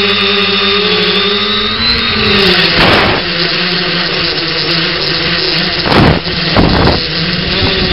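Electric motors and propellers of an X900 tricopter whining, heard close up from the onboard camera, the pitch dipping and shifting about two seconds in as the throttle changes. Short noisy rushes of air cut in about three seconds in and twice near six to seven seconds in.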